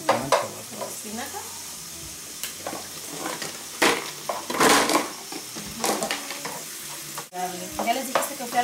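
Spinach sizzling in a hot skillet while drained pasta is tipped in from a plastic colander and stirred with a spatula, which scrapes and knocks against the pan. The loudest stretch comes about four and a half seconds in, as the pasta goes in and is turned over.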